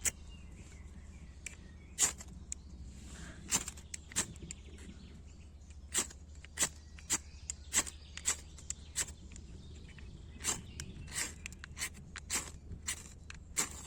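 A striker scraped hard and fast along a ferrocerium fire-steel rod, over twenty short, sharp scrapes at an uneven pace, as repeated tries to throw sparks that have not yet lit the tinder.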